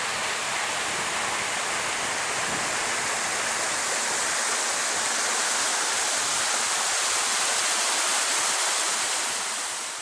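A steady, hissing rush of noise, like rushing water or wind, that fades away at the very end.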